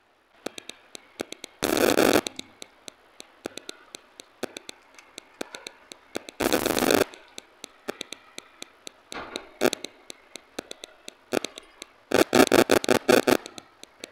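Close-miked eating sounds from a person eating roti and vegetables by hand: many sharp mouth clicks and chewing sounds, with three louder scraping, rustling bursts about two seconds in, midway, and near the end, the last one rapidly pulsing.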